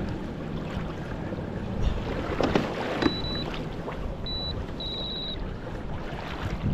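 Sea water lapping against a fishing kayak, with a few knocks of gear being handled near the middle. Three short high electronic beeps come in the second half, the last one a quick string of pulses.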